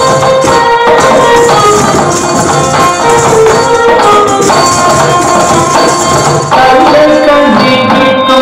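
Kavadi chindu dance music in raga Anandabhairavi: a melody over a steady rhythmic percussion beat with jingling, which changes about six and a half seconds in.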